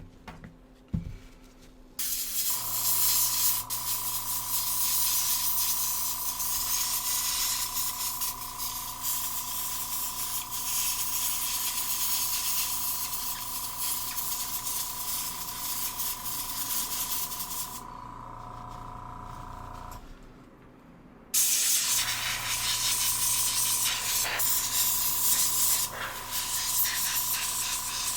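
Air blowing with a steady hiss over a motor's hum, cleaning flux out of an HDMI port. It starts about two seconds in, stops for a moment near twenty seconds, then starts again.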